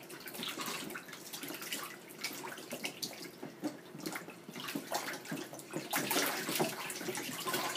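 Water splashing and sloshing in a plastic infant bathtub as a baby kicks its legs, in irregular splashes that get busier about six seconds in.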